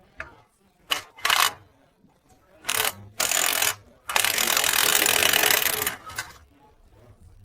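E-rickshaw running noise: harsh mechanical rattling and grinding in several bursts, the longest about two seconds near the middle.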